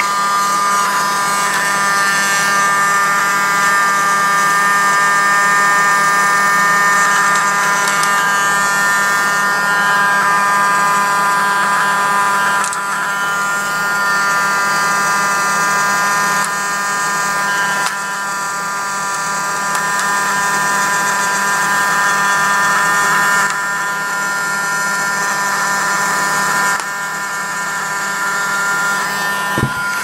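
Paladone PL-1020 USB desk vacuum running, passed over dust on a wooden board: its small fan motor gives a steady high whine over an airy hiss, dipping slightly in level a couple of times.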